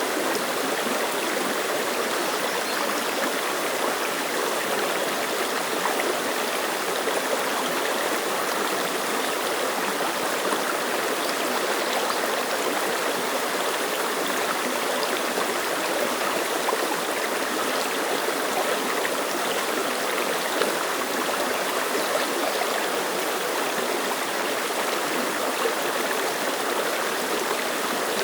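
Clear mountain stream flowing and splashing over rocks, a steady, even rushing and babbling of water.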